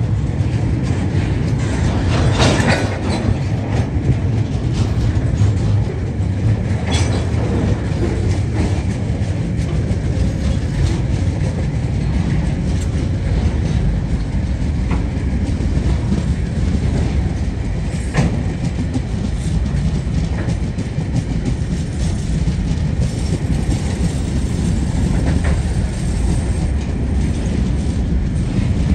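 Loaded freight wagons (log wagons, then container flat wagons) rolling past at low speed: a steady low rumble of wheels on rail, with a few sharp clanks.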